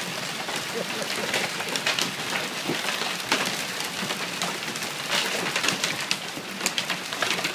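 Marble-sized hail and rain coming down on a wooden deck: a steady hiss of rain dotted with many sharp ticks of hailstones striking.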